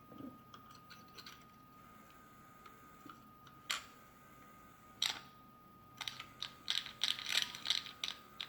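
Small plastic clicks and rattles from handling the toy bank's talking mechanism and its parts: a single click, another a second or so later, then a quick run of clicks near the end.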